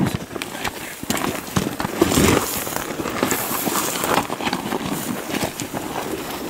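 Gravel crunching and clothing and gear rustling as hunters get down prone on rocky ground with a rifle: a quick run of small clicks and scrapes, with a louder scuffle about two seconds in.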